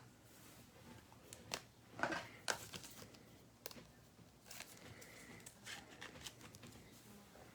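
Faint crinkling, rustling and short tearing sounds of a trading-card pack's foil wrapper and cards being handled, in a scattered run of brief strokes.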